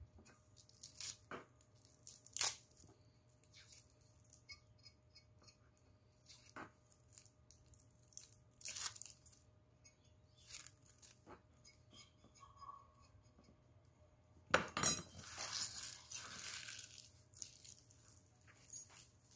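Small steel knife picking and tearing the papery skins off shallots over a plastic cutting board: scattered light clicks, scrapes and crinkles of peel. About three quarters through comes a louder, longer stretch of scraping and rustling.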